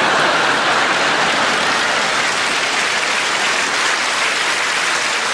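Studio audience applauding: dense, steady clapping that eases off slightly toward the end.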